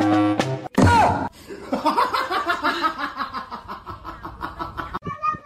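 A music track ends under a second in. After a brief sharp squeal, several seconds of people laughing follow. A cat's meow begins near the end.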